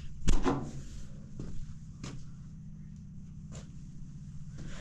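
A sharp knock, then a few fainter clicks and taps as things are handled while rummaging, over a steady low hum.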